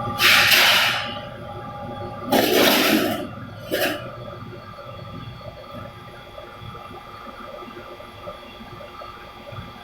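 Press machine running with a steady hum and faint steady tones. Three short bursts of hissing rush come in the first four seconds, the first two each lasting under a second.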